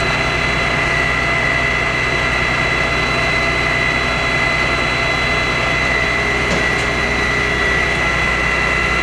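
Fire engine's engine running steadily, a loud even drone with a thin, high, unchanging whine above it.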